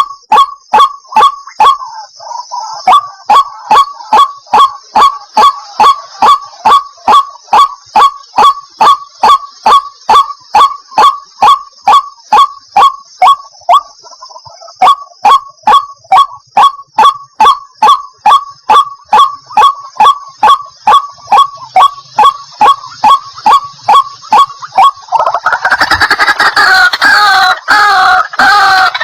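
White-breasted waterhen calling a long run of short, honking 'kwak' notes, about three a second, with brief breaks. Near the end the calls turn into a louder, denser chatter. A steady high-pitched buzz runs behind the calls for most of it.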